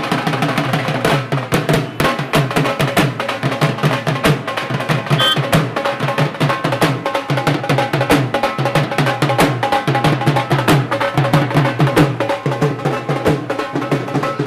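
Two dhol drums beaten with sticks in a fast, steady rhythm.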